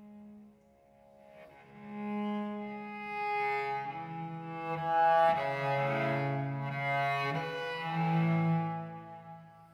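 Solo cello playing a slow melody of long, bowed notes. The notes swell in after a brief near-pause at the start, grow loudest midway, and fade near the end.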